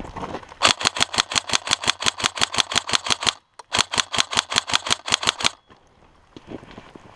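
Airsoft electric rifle firing two full-auto bursts of about eight shots a second, a few seconds apart, with a short pause between them.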